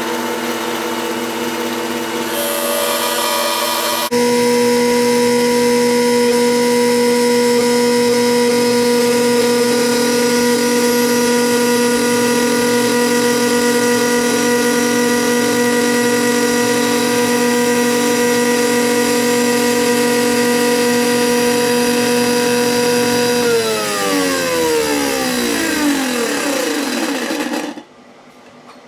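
Jet JWTS-10 table saw running steadily while its blade is slowly cranked up through a walnut zero-clearance insert, cutting the blade slot. The sound turns rough a couple of seconds in, then jumps louder to a strong steady hum about four seconds in. Near the end the saw is switched off and its pitch falls as it spins down to a stop.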